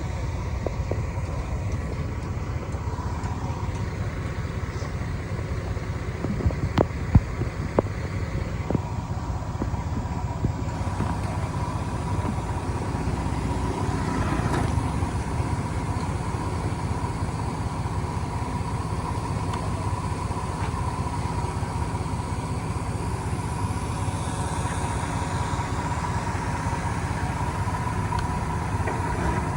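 Heavy diesel earthmoving machinery running steadily, with a constant low rumble and a steady high whine. A few sharp metallic knocks come about six to eight seconds in.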